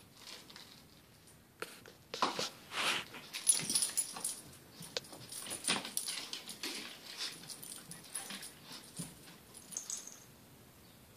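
Dog whining and whimpering in short, irregular bursts while jumping at a dangling toy, mixed with sharp knocks and scuffles. The sounds start about a second and a half in and die away near the end.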